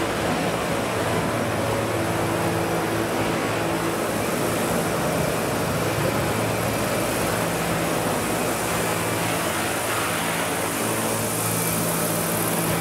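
Radio-controlled Vario CH-47 Chinook scale model helicopter hovering low: its two rotors and drive run steadily, a continuous low hum under a rush of blade noise, with a little more hiss near the end.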